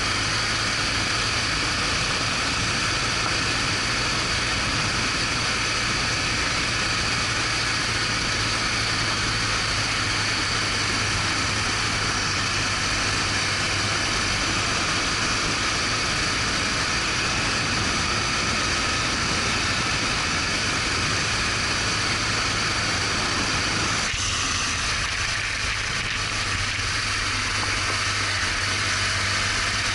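BMW R1200GS Adventure's flat-twin engine running steadily while riding, mixed with wind and road noise on the onboard microphone. About six seconds before the end the lower rumble drops away.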